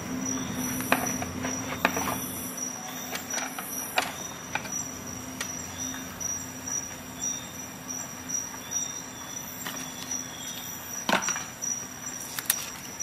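Scattered light clicks and taps of a metal multi-tool being handled and set down on a workbench mat, with the sharpest knocks about eleven and twelve and a half seconds in, over a steady low hum and a faint high whine.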